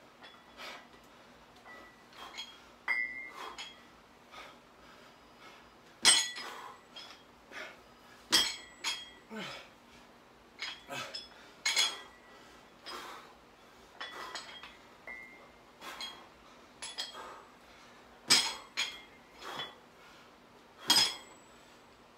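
Plate-loaded dumbbells' iron plates clinking with each overhead press: sharp metallic clinks with a short ring, coming irregularly, the loudest every two to three seconds.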